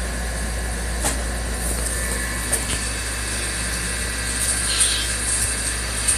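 A steady low hum, as of a motor or engine running, with a few faint clicks.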